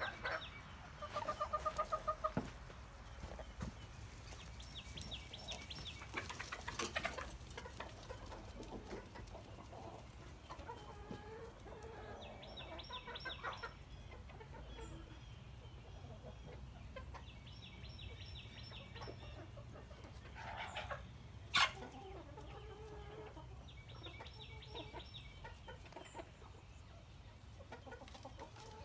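Flock of chickens clucking, with a loud run of rapid clucks about a second in and a single sharp knock a little past the middle.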